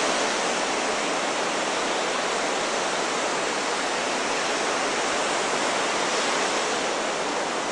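Steady rush of Lake Superior surf breaking along a rocky shoreline, an even wash of noise with no separate wave crashes standing out.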